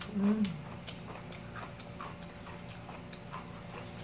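Eating sounds at the table: scattered soft clicks of chewing and chopsticks against plates, after a brief hummed voice sound in the first half second.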